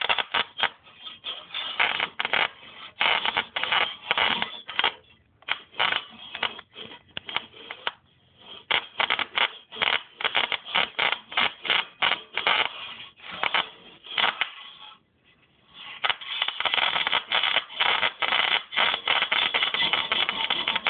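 High-voltage sparks arcing from the output of a 555-timer-driven car ignition coil at about 15 kV, crackling and snapping in irregular rapid bursts. The arcing stops for about a second around fifteen seconds in, then comes back as a denser, steadier crackle.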